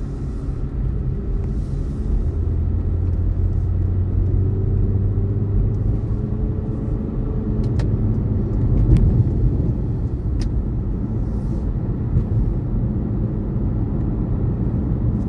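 A car's road and engine noise heard from inside the cabin while it drives along: a steady low rumble.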